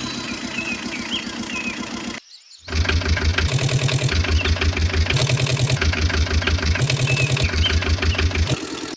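Medium-sized truck engine running, a sound effect laid over toy trucks that are being pushed by hand. It cuts out for about half a second around two seconds in, then comes back with a regular low throb that repeats about every second and a half.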